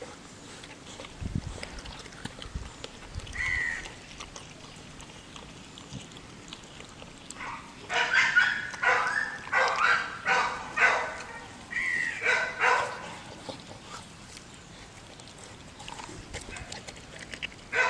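A dog barking repeatedly: a run of loud barks about twice a second from roughly eight to thirteen seconds in, with quieter stretches before and after.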